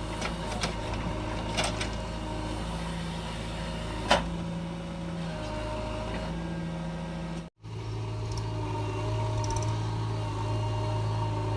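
Heavy diesel engine running steadily at low revs, with one sharp click about four seconds in. After a brief cut about halfway through, the engine hum is steadier and stronger.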